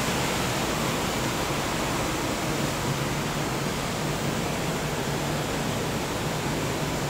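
Steady, even rushing of ventilation fans in a ship's engine room, with a faint low hum under it.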